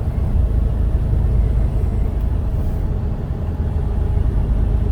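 Steady low rumble of a running car.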